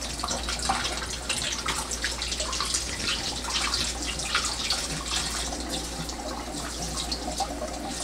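Kitchen faucet running a thin stream into a sink and splashing over hands peeling a hard-boiled egg, steady with small irregular splashes.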